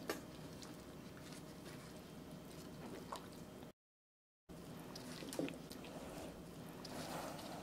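Faint wet squelching and dripping of a gloved hand kneading raw chicken thighs in a loose marinade of chopped lemongrass, garlic and shallot. The sound cuts out completely for under a second about halfway.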